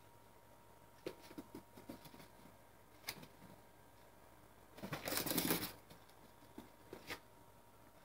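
Pets scampering while they play: scattered light taps of paws and claws on a hardwood floor, with a brief louder scuffle about five seconds in.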